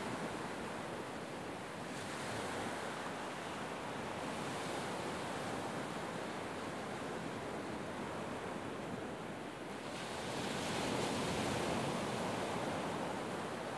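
North Sea surf washing onto the beach, a steady rushing with wind mixed in; it swells louder and brighter about ten seconds in.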